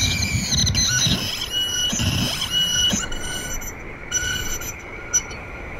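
Contact-miked pane of glass played with the lips and run through effects pedals and an amplifier, giving high, stacked squealing tones in short bursts over a rough low rumble. The squeals thin out after about four seconds, and a sharp click comes near the end.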